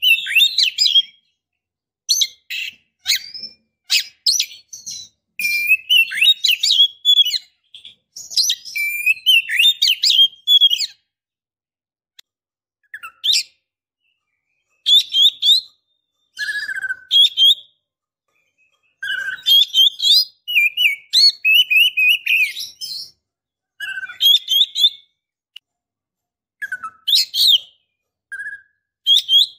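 Female oriental magpie-robin (kacer) in breeding condition calling, the kind of call used to lure a male into answering. It comes in short phrases of quick, high chirps and whistles, with pauses of a second or two between them.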